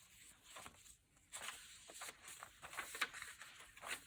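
Faint rustling and light crackling of paper pages in a handmade journal being turned and handled, a string of soft irregular ticks.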